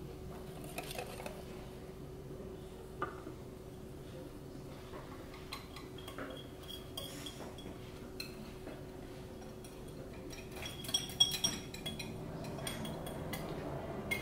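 A metal utensil scraping and clinking against a glass bowl as thick dressing is scraped out into a funnel on a glass jar: sparse light clinks, one about three seconds in and a quick run of them near the end, over a steady low hum.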